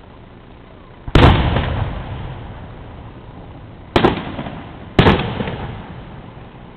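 Aerial firework shells bursting: three sharp bangs, about a second in and then twice a second apart near the end, each trailing off in a rolling echo that fades over a second or two.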